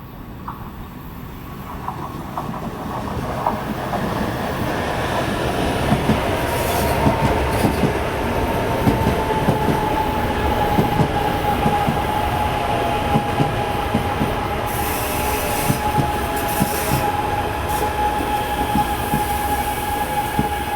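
Train rolling past on the rails, growing louder over the first few seconds, with a steady high-pitched wheel squeal and repeated clacks of wheels over rail joints.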